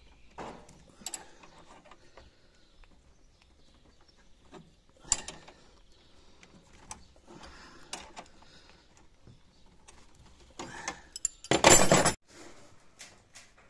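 Steel wrenches clicking and clinking against brass flare nuts on copper refrigerant pipes, with scattered taps and scrapes as the fittings are worked. A brief loud burst of noise comes near the end.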